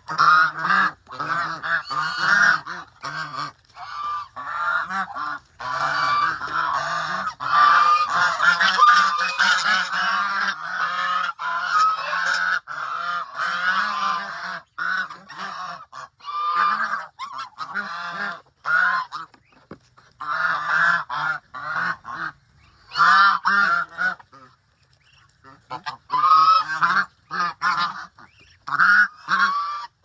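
A flock of domestic geese honking and calling over one another while feeding. The calls come thick and continuous for the first half, then in bursts with brief lulls.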